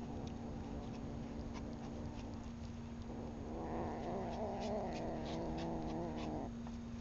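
Domestic cat growling low and continuously while it eats. The growl swells and wavers from about three and a half seconds in, then stops shortly before the end.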